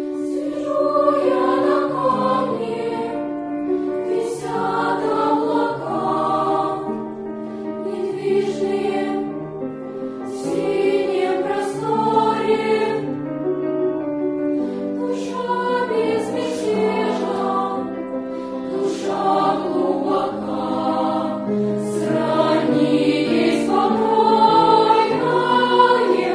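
A children's choir singing a sung text together, several voices at once, phrase after phrase with short breaks between.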